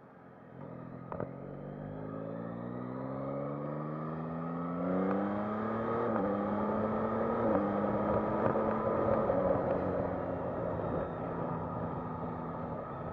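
Yamaha MT-09 SP's inline three-cylinder engine accelerating hard, its pitch rising steadily. Two quick-shifter upshifts about six and seven and a half seconds in each drop the pitch briefly without a pause in the pull. Wind noise builds with speed, and there is a sharp click about a second in.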